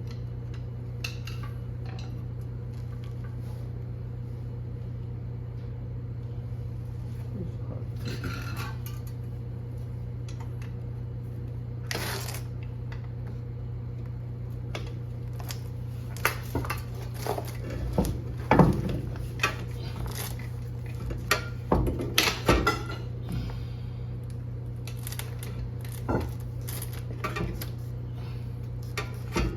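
Metal hand tools and car parts clinking and clanking while a drive axle is worked on. There are a few scattered knocks at first, then a dense string of sharp clanks through the second half, all over a steady low hum.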